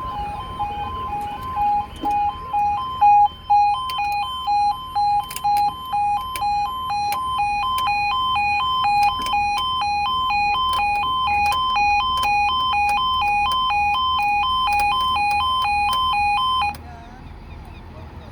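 Two 'Hangman'-type railway level crossing alarms sounding together: a two-note electronic warble that alternates between a lower and a higher tone about twice a second. The alarms cut off suddenly near the end.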